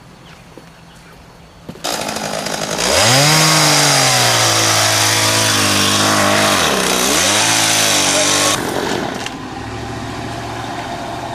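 Dodge pickup truck's engine revved hard under load, straining to pull a stump: the pitch climbs sharply about three seconds in and holds high for about five seconds with one brief dip before dropping back to idle. A loud rushing noise runs with the revving, and the stump does not come out.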